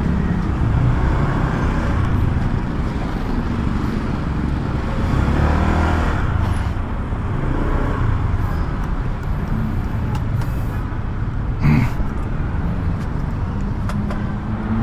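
Riding a Honda Click 150 scooter in road traffic: a steady rumble of engine, wind on the microphone and passing vehicles. One short knock comes about twelve seconds in.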